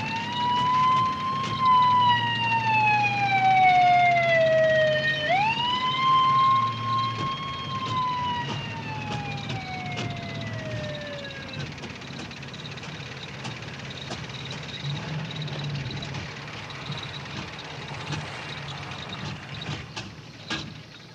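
Police car siren wailing: it winds up, slowly sinks, winds up again about five seconds in, then slowly dies away near the middle of the stretch. Beneath it runs the steady low drone of an old car's engine on the road.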